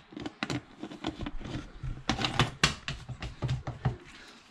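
Plastic shaker cup being handled, its lid and flip cap giving an irregular run of sharp clicks and knocks that dies away near the end.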